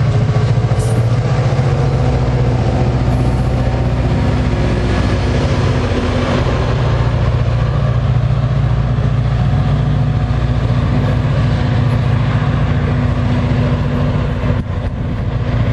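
A diesel engine running with a steady, even low hum as a commuter train pulls out past the platform.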